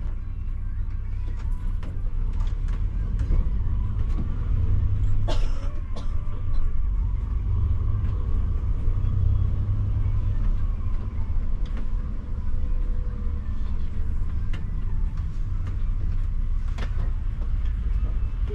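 Coach engine running with a steady low rumble heard inside the cabin, with a couple of sharp clicks.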